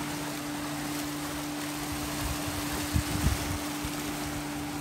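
Wind blowing on the microphone over open sea water, with a steady low drone of a boat engine under it. Two wind buffets thump a little after three seconds in.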